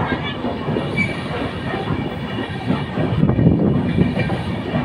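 Express passenger train coach running on the track, heard from its open doorway: a steady rumble and clatter of wheels over the rails, with a faint high squeal from the wheels.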